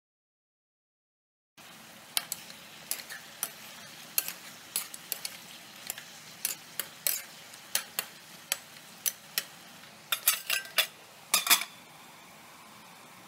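A metal utensil stirring chicken frying in a kadai: irregular sharp clinks and scrapes against the pan, about one or two a second with a quicker flurry near the end, over a steady frying hiss. It starts about a second and a half in.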